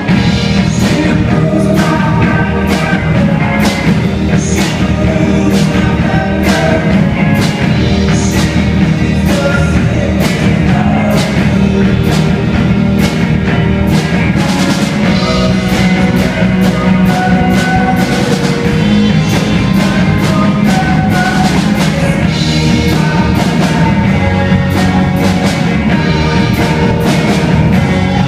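A rock band playing live: a drum kit keeping a steady beat under electric guitars and keyboard, loud and without a break.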